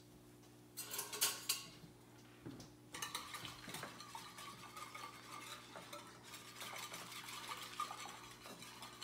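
Wire whisk beating a liquid marinade in a baking dish, a fast steady clatter of the wires against the dish that starts about three seconds in. A few brief utensil clinks come about a second in.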